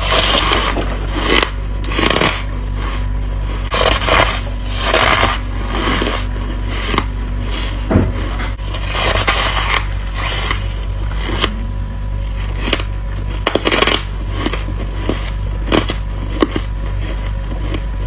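Person biting and chewing freezer frost close to the microphone: crisp, squeaky crunches coming every second or two, over a steady low hum.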